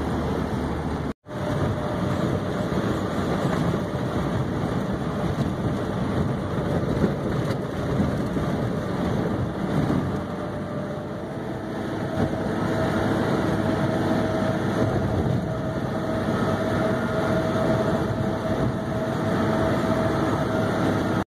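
Steady road and engine noise inside a moving car's cabin at highway speed: tyre rumble on worn asphalt with a faint engine hum. The sound cuts out for an instant about a second in.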